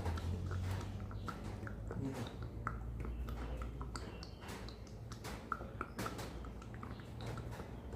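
Irregular squishy clicks and ticks of a hand-pressed shampoo-bottle pump pushing gearbox oil through a hose into the transmission, over a steady low hum.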